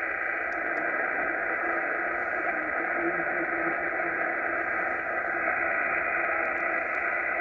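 ICOM IC-R71E shortwave receiver's loudspeaker giving out steady static and hiss on the 40-metre band in lower sideband, with no clear voice on the channel. Two faint clicks about half a second in.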